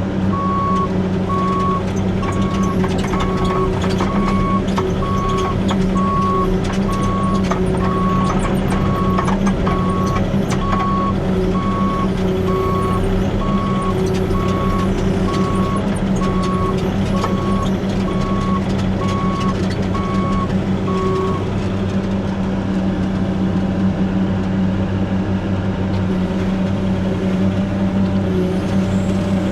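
Diesel engine of a piece of earthmoving equipment running steadily under work, with its backup alarm beeping in a steady series while the machine reverses; the beeping stops about two-thirds of the way through and the engine runs on.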